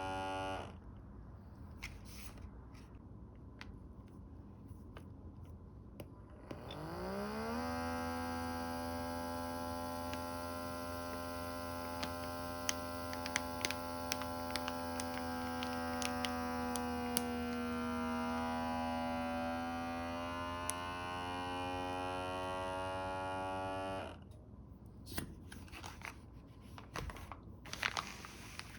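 A small electric vacuum-sealer pump spins up with a quick rising whine, runs steadily for about seventeen seconds while drawing air out of a bag, then cuts off suddenly. Faint clicks and plastic rustling come before and after it.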